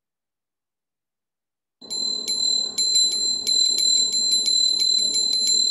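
Puja bell (ghanti) rung continuously, its clapper striking in quick succession, several strikes a second, over one steady high ring. It starts suddenly about two seconds in.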